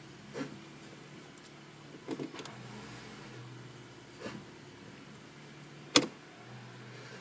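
2013 Honda Civic shifting: a steady low hum under a handful of short clunks and clicks, about five, the sharpest about six seconds in. The owner calls it a grinding noise when shifting, which the dealership says is normal.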